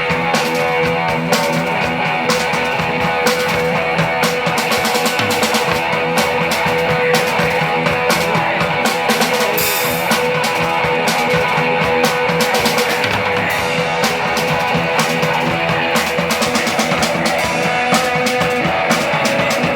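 Live punk rock band playing loud, with distorted electric guitar and a drum kit hitting steadily throughout.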